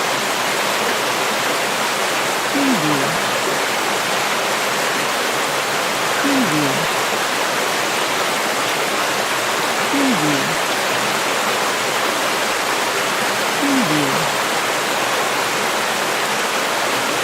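River water flowing in a steady, continuous rush.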